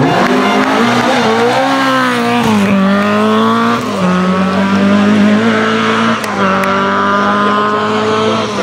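Ford Escort RS 2000 MkII Group 4 rally car's four-cylinder engine revving hard at full throttle, its pitch climbing and dropping several times with gear changes, then held steady through the second half.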